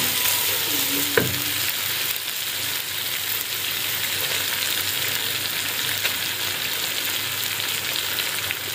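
Chicken, egg and vegetable stir-fry sizzling steadily in hot oil in a wok, stirred with a wooden spatula while boiled rice is tipped in from a bowl. A single short click about a second in.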